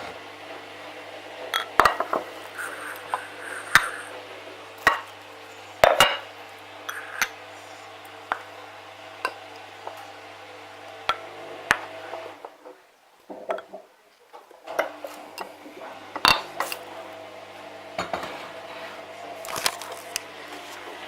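A utensil knocking and clinking against a bowl in scattered sharp taps, over a steady low hum that breaks off briefly about thirteen seconds in.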